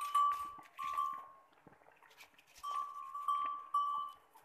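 Small livestock bell jingling as the animal moves: short runs of ringing strikes on one clear note, with a quiet gap of about a second in the middle.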